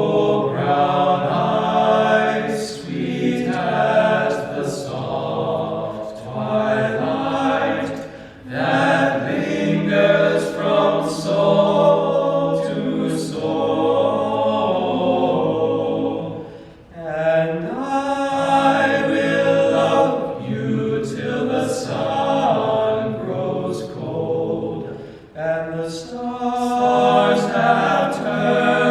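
Male a cappella group singing a song in several-part harmony, voices only with no instruments. There are short breaks between phrases about a third and two thirds of the way through, and again near the end.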